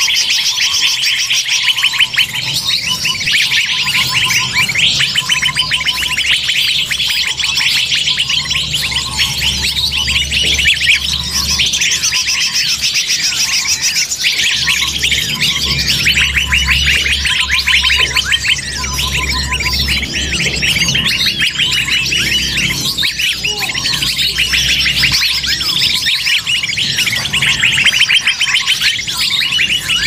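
Bird-lure (pikat) recording: a dense chorus of many small forest birds chirping and trilling over one another without a break, with a lower short note repeating now and then.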